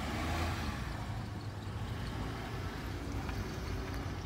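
A vehicle engine running steadily, a low hum under a constant wash of background noise.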